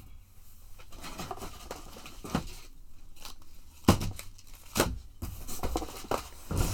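Plastic packaging of fishing tackle being handled: rustling and crinkling, with two sharp clacks about four and five seconds in.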